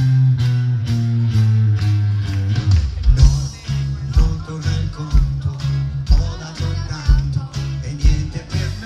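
Live pop band playing on stage, heard from the audience: held bass notes at first, then a steady drum beat with bass sets in about three seconds in, with a male singer singing into a microphone.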